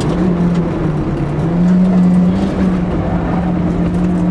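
Suzuki Swift N1 rally car's engine at full throttle, heard from inside the cabin, with road and tyre noise. Its pitch dips briefly about a second in, then climbs and holds high.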